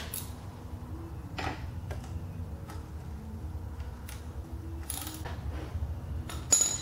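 Scattered light metallic clicks and taps, about half a dozen, from a wrench and the primary drain plug as the plug is refitted on a Harley-Davidson Softail. The sharpest click comes near the end, over a low steady hum.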